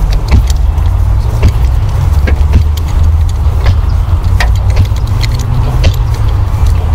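Spark plug wrench turning a new spark plug into the cylinder head of a Lada Kalina's 8-valve engine, with scattered light metallic clicks, over a steady low rumble.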